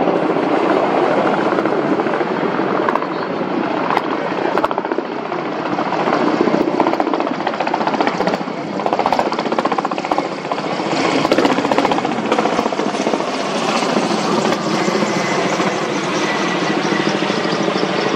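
Kamov Ka-32 coaxial-rotor helicopter hovering low over the water while filling its slung water bucket, then lifting away: loud, dense, rapid rotor chop over the turbine noise.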